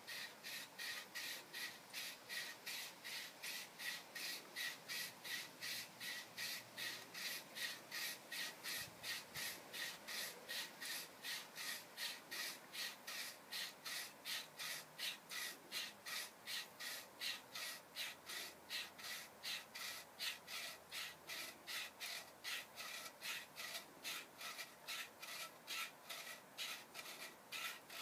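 Pipe-preparation tool twisted back and forth on the end of a chrome-plated copper pipe, scraping the chrome plating off ready for soldering. It makes a steady, even rasp, about two strokes a second.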